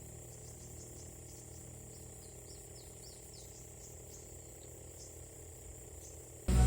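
Steady high-pitched drone of crickets with a run of short, quick chirps over it. Near the end a sudden loud low rumble breaks in.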